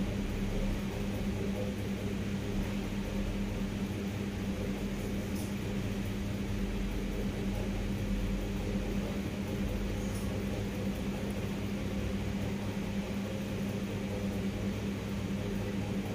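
Ceiling fan running with a steady, even hum and a low drone that does not change.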